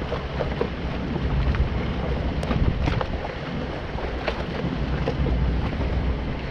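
Gusty wind buffeting the microphone, a steady low rumble, with scattered small clicks and knocks over it.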